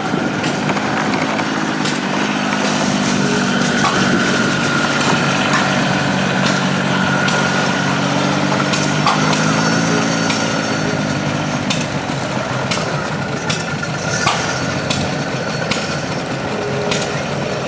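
An engine running at a steady idle, with a steady higher whine above it and a few light clicks.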